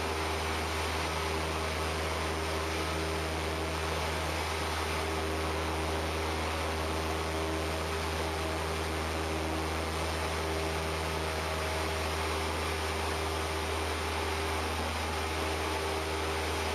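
Cessna 172P's four-cylinder piston engine and propeller at climb power just after takeoff, a steady low drone mixed with an even rush of air and hiss.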